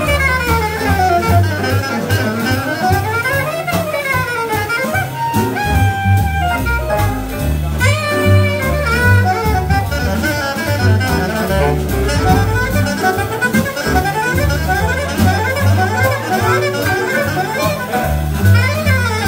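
Live jazz: a saxophone plays quick runs that rise and fall, over a walking double bass.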